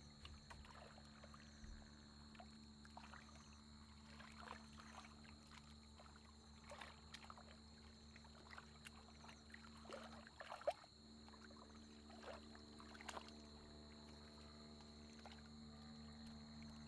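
Faint splashing and squelching of hands groping through shallow, muddy paddy water while hunting for fish by hand. The sounds are short and scattered, with one sharper splash a little past the middle, over a steady faint hum.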